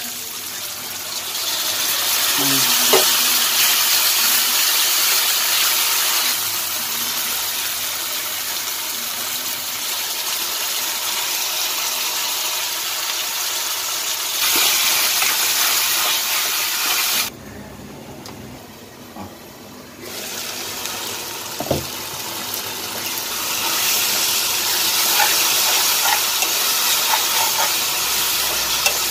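Onions, green chillies and herbs frying in hot oil in a pan, a steady loud sizzle, with chopped tomatoes later frying in and being stirred with a spatula. The sizzle drops abruptly to a much quieter hiss for about three seconds past the middle, then comes back.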